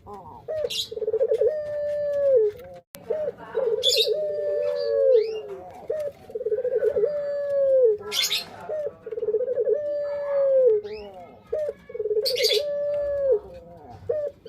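Male puter pelung, a ringneck dove, cooing about five times in a row. Each coo is a quick stuttering run of notes into a long held note that drops at its end. Brief high chirps from other small birds come in between.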